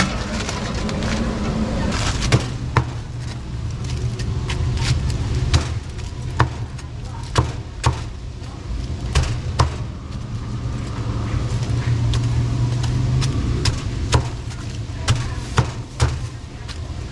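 Cleaver chopping bone-in fried chicken on a thick wooden chopping block: a string of sharp single chops at irregular intervals, about one a second, over a steady low hum.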